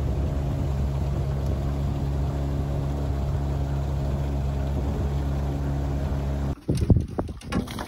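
Outboard motor of a small aluminium fishing boat running steadily while trolling with rods out. About six and a half seconds in it cuts off abruptly, replaced by a few sharp knocks and clatter.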